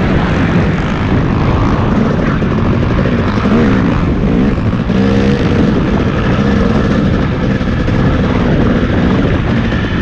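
Off-road racing engine running and revving up and down over a steady rush of noise, as when riding a track.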